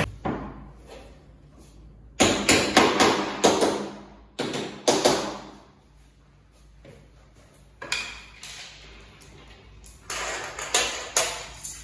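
Knocks and clatter of flat-pack furniture parts being handled during bed assembly, in several short bursts with quiet gaps between.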